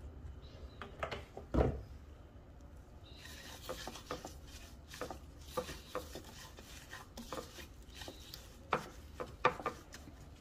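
A gloved hand rubbing and mixing chopped dill, garlic and olive oil in a ceramic bowl: a steady wet rubbing with many small clicks and knocks against the bowl. A louder knock comes about one and a half seconds in, and two more near the end.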